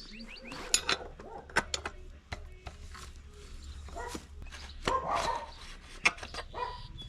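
A dog barking a few times, mixed with sharp clinks and knocks.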